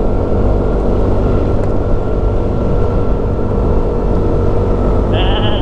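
Motorcycle riding along at a steady pace: the engine running under a heavy low rumble of wind on the microphone. A high-pitched tone comes in near the end.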